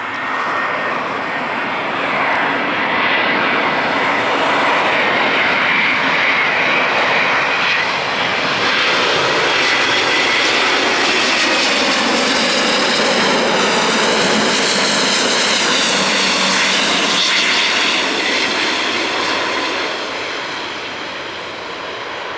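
Airbus A350-941 airliner on landing approach passing low overhead, its twin Rolls-Royce Trent XWB turbofans giving loud jet noise with a thin fan whine early on. The noise builds, stays at its loudest with a sweeping, phasing shimmer through the middle, and fades near the end as the aircraft passes.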